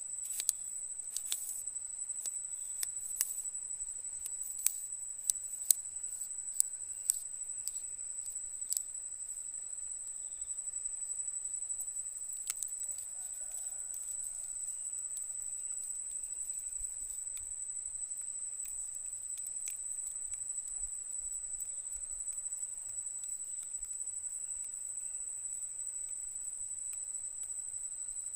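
An insect's steady, high-pitched continuous buzz, a single unbroken tone, with scattered sharp clicks over the first nine seconds or so.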